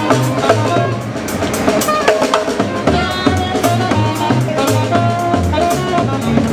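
Marching brass band playing live: a sousaphone bass line of short low notes under saxophone and trombone, with snare drum strokes keeping a steady beat.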